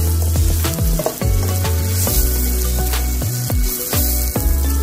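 Margarine melting and sizzling with browned garlic and onion in a nonstick pot, a spatula stirring and scraping the bottom in quick strokes. Background music with a low bass line plays underneath.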